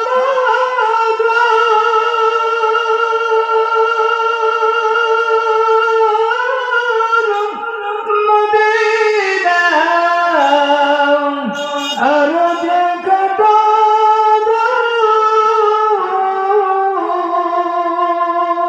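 A man's solo voice singing a gazal melody wordlessly into a microphone: long held notes that slide and bend between pitches, with a dip to lower notes about two-thirds of the way through.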